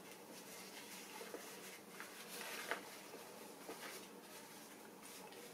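Faint rustling of fabric being handled as a sewn piece is turned right side out, with a few soft, brief rustles over a quiet room.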